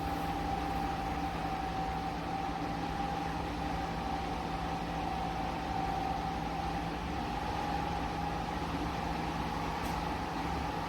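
Dreo tower fan running: a steady rush of air with a steady motor hum and a faint whine.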